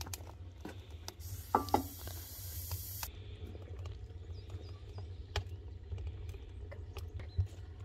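Two ringing metallic clanks about one and a half seconds in, as a metal pan is set on the top of a sheet-iron wood stove, inside a brief hiss. Scattered light clicks and small bird chirps follow, with one more knock near the end.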